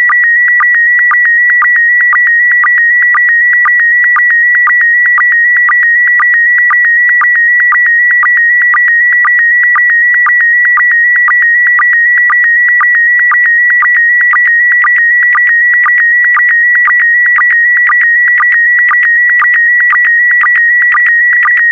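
Slow-scan television signal in PD120 mode: a continuous electronic tone near 2 kHz that shifts with the picture's brightness as an image line is sent, broken about twice a second by short lower-pitched sync pulses.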